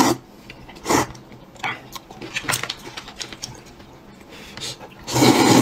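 Noodle slurping: short loud slurps at the start and about a second in, and a longer, louder slurp near the end, with small wet chewing and mouth clicks in between.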